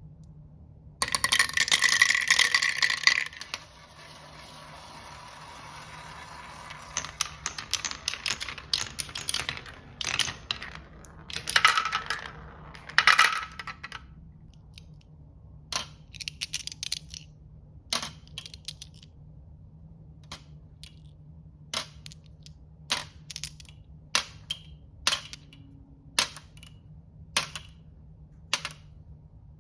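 Marbles clattering and rolling down a wooden HABA marble run: a loud burst of many marbles clacking together about a second in, a running rattle of rolling marbles, then single sharp clicks about once a second as marbles drop one by one.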